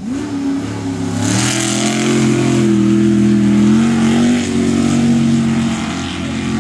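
Off-road race truck's engine revving hard under full acceleration on a dirt course. The pitch climbs about a second in and holds high for a few seconds, then eases slightly and keeps running loud.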